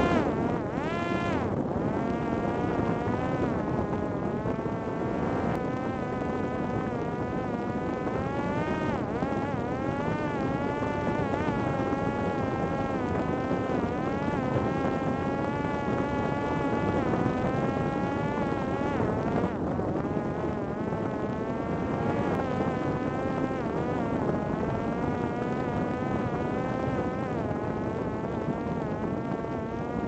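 Parrot Disco fixed-wing drone's electric motor and pusher propeller buzzing in flight, heard from on board with wind rushing past. The whine wavers up and down in pitch as the throttle and airspeed change.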